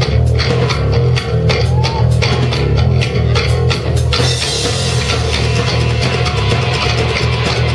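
Live rock band playing: distorted electric guitar, bass and drum kit, with regular drum hits that give way about four seconds in to a wash of crashing cymbals.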